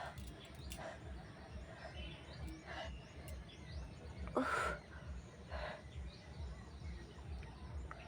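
A woman's short forced coughs, four of them, the strongest about four and a half seconds in, deliberately made rather than from a cold, over a steady low background rumble.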